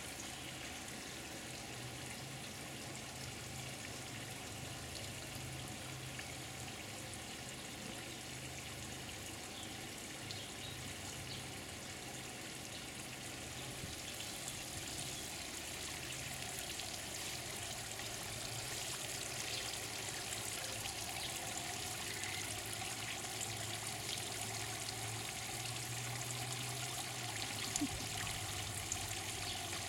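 Water from an inflatable play pool's hose-fed sprayer trickling and splashing steadily into the pool, a little louder in the second half, with a low steady hum underneath.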